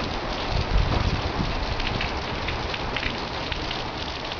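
Desert summer rain falling steadily in a dense patter of drops, with a brief low rumble about a second in.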